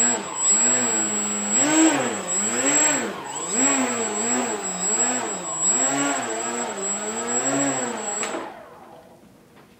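Small RC hovercraft's motor and propeller whining, the pitch rising and falling over and over as it is driven, then cutting off about eight seconds in. A thin steady high tone runs with it.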